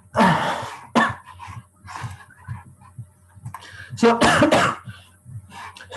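A person coughing and clearing their throat, in short separate bursts; the loudest come just after the start and again about four seconds in.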